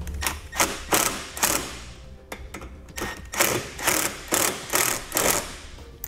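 Screwdriver turning in the two screws that mount a six-way trailer connector: two runs of sharp clicks, about three a second, the second run longer.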